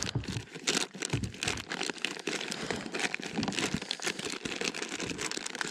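Plastic lure packages crinkling and rustling irregularly as hands dig through a soft fabric tackle bag.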